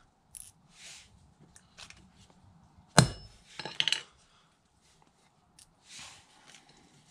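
Small steel fixings clinking against a Pragmasis Torc Mega steel ground anchor plate: one sharp metallic clink about three seconds in, followed closely by a few lighter clinks, with soft rustles in between.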